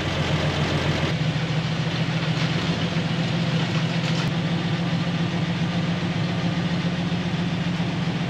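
Toyota Land Cruiser FJ55 engine running steadily at low speed, just fitted with a new HEI distributor; the owner says it still has a slight miss, which could be just a cold carburetor.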